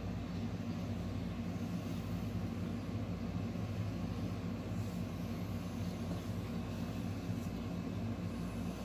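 A steady low mechanical hum made of several fixed low tones over a faint even hiss, unchanging throughout.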